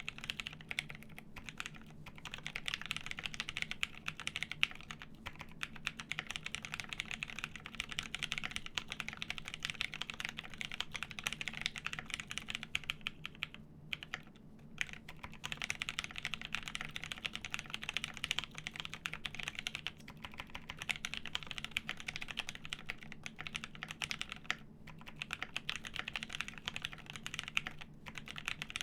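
Mechanical keyboard in a JER1800 case, plateless, with lubed Pewter switches and G81-1800 keycaps, typed on continuously: a dense run of rapid key clacks with short pauses about halfway through and again near the end.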